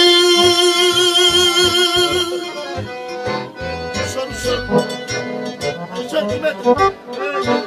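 A male voice holds a long wavering note in a Romanian ascultare song, then a piano accordion carries on alone with a quicker run of melody over low bass notes.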